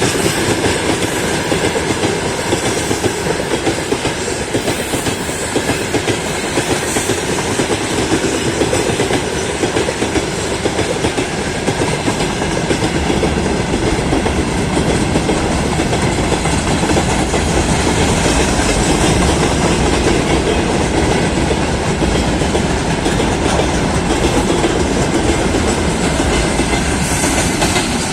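Freight train wagons rolling past, their wheels clattering steadily over the rail joints.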